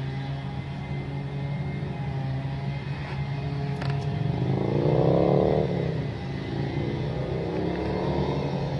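Gas-powered leaf blower running with a steady engine drone. About four to six seconds in, an engine note rises in pitch and loudness, then falls away.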